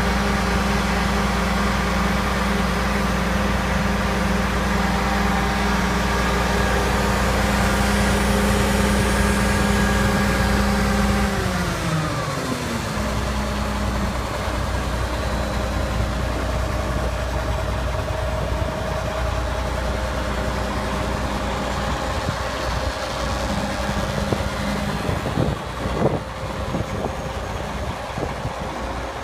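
Kenworth T600's Detroit Diesel DDEC engine running steadily at a raised speed, then dropping in pitch over about two seconds just before halfway and settling to a slower idle. A few knocks come near the end.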